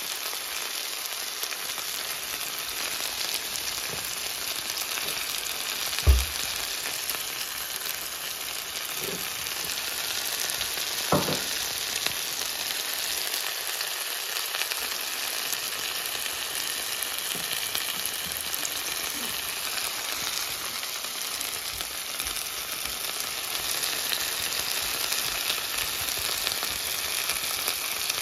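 Onions, tomato slices and grated carrots frying in olive oil in a frying pan, a steady sizzling hiss. Two short knocks cut through it, the louder about six seconds in and a lighter one about five seconds later.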